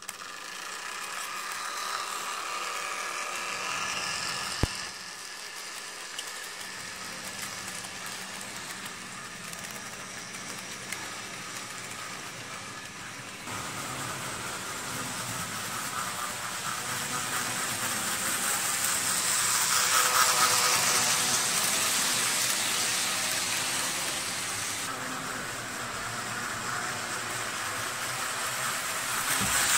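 HO scale F7 model diesel locomotives and passenger cars running on layout track: a steady electric motor whir with the wheels rattling over the rails. It gets louder about halfway through and again at the very end as the train comes close.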